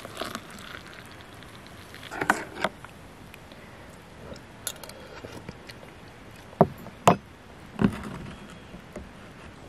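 Hot water being poured into an enamel camp mug right at the start, then a scattering of sharp clinks and knocks of enamel mugs and a steel pot against a wooden table, the loudest a close pair about seven seconds in.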